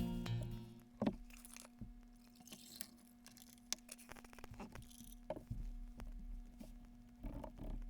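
Faint clicks, taps and light rustling of small objects being handled, over a low steady hum.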